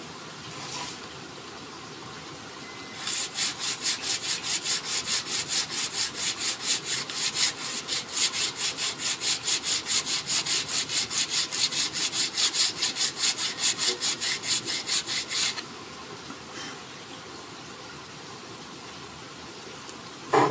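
Sandpaper rubbed back and forth by hand along a forest red gum didgeridoo, in fast, even strokes at about four a second. The strokes start about three seconds in and stop a few seconds before the end. A short, sharp sound comes near the end.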